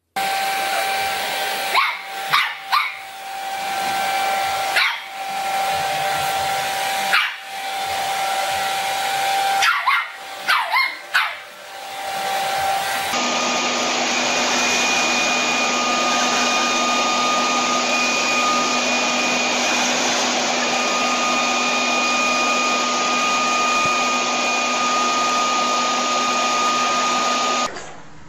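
Handheld hair dryer blowing steadily while a small puppy barks at it several times in short bursts. About halfway through the sound changes to a leaf blower running steadily, with a continuous whine.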